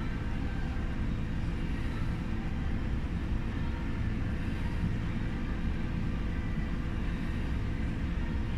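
Steady low rumble of background noise, with no distinct knocks, thuds or voices.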